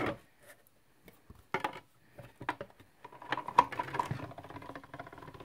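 Hand-cranked die-cutting machine pulling a cutting plate and die through its rollers. A few separate clicks give way, about three seconds in, to a steady run of rapid clicking and rattling as the crank turns.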